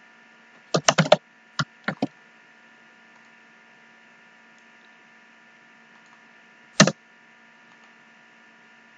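Keystrokes on a computer keyboard: a quick run of clicks about a second in, three more single clicks around two seconds, and one more near seven seconds. A steady electrical hum sits underneath.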